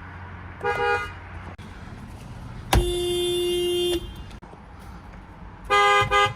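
Toyota car horns sounding three times: a short beep on two notes at once, then a single-note blast held for just over a second, then another short two-note beep near the end.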